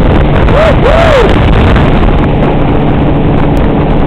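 Tow boat's engine running at speed under heavy wind buffeting the microphone. About a second in, a voice gives two short rising-and-falling whoops.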